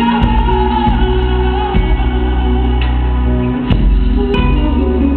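Loud music: a song with a woman singing over a steady bass accompaniment.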